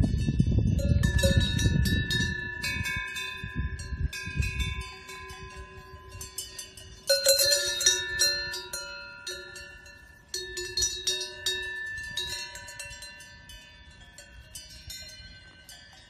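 Cowbells on grazing Holstein cows clanking irregularly, several bells ringing at different pitches, with louder clusters of strikes about seven and ten seconds in. A low rumble runs under the first five seconds.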